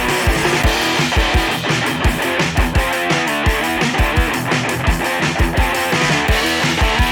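Background music: guitar with a steady drum beat.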